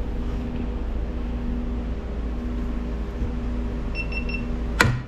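A steady mechanical hum runs throughout. About four seconds in there are three quick faint beeps, and near the end a single sharp metal clank as the loosened steering parts are handled.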